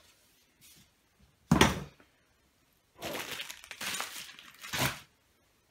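A single loud thump about a second and a half in, then about two seconds of rustling and scraping as a cardboard box packed with fireworks and plastic wrapping is handled.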